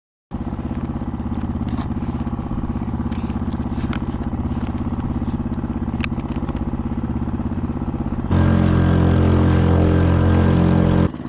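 Small 2 hp outboard motor on a compact kayak running steadily under way. About eight seconds in it abruptly gets louder for a few seconds, then drops back.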